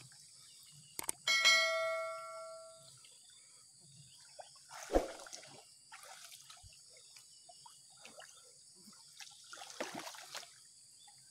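A mouse click, then a bell ding that rings and fades over about a second and a half: the sound effect of a subscribe-button animation. Later, a few soft splashes of water as people wade through a muddy pool.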